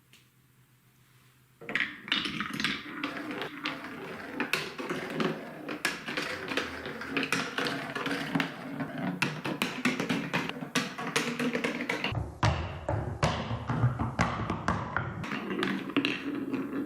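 Many plastic marbles clattering down TrixTrack wave-slope marble-run track, a dense stream of rapid clicks and knocks that starts about a second and a half in. About twelve seconds in the rattle turns heavier and deeper.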